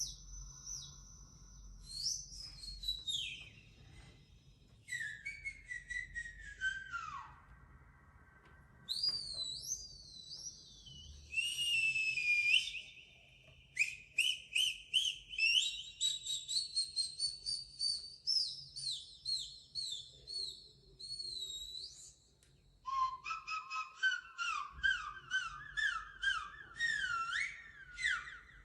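A series of high whistle-like tones: long falling slides, warbles, and runs of quick repeated chirps, with short pauses between the phrases.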